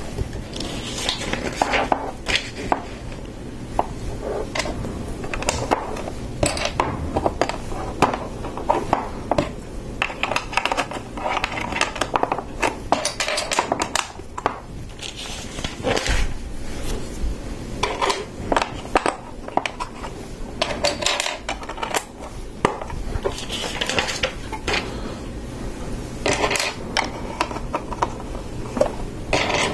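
LEGO plastic bricks being handled and pressed together: a busy run of small clicks and clattering rattles as pieces are picked up and snapped onto the model.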